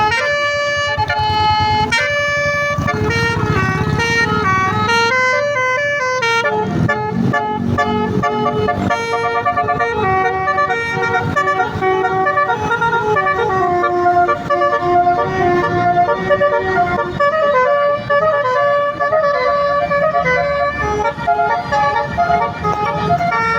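Basuri telolet air horn on a bus playing a tune: several pitched horn tones that step up and down and overlap for the whole stretch, with the vehicle's engine running underneath.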